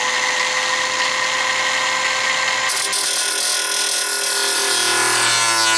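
Electric angle grinder running with a steady whine. About three seconds in its disc bites into stainless steel and a harsh hissing grind joins in, while the motor's pitch sinks under the load.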